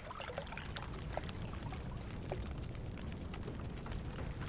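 Water trickling and lapping, with small plops in the first couple of seconds, over a low steady rumble.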